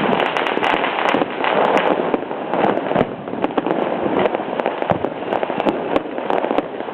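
Fireworks and firecrackers going off in a dense, continuous crackle of rapid pops, with a few louder bangs standing out, one about three seconds in and another about five seconds in.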